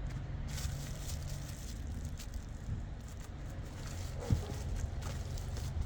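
Quiet workshop handling noises from fork parts being worked on by hand: faint light clicks and one short knock about four seconds in, over a steady low hum.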